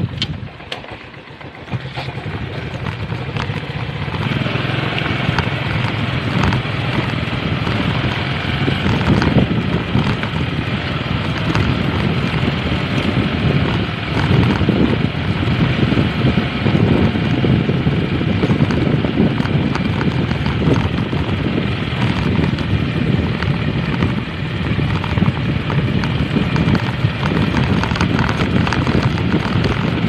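Motorcycle running along a rough dirt track, its engine and road noise steady, with frequent knocks and rattles from the bumps. The sound dips briefly about a second in, then holds steady.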